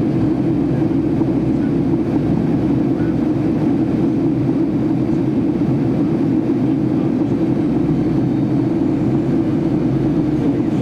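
Boeing 757-300 in flight, heard from inside the cabin: a steady low drone of engines and rushing air, with no change in level.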